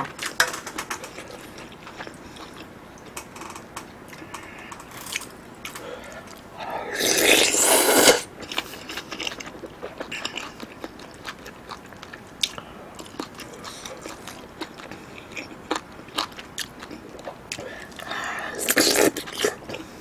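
Close-miked chewing and wet mouth sounds of a person eating beef bulgogi hot pot, with many small clicks throughout. Two louder, drawn-out noisy mouth sounds come about seven and nineteen seconds in.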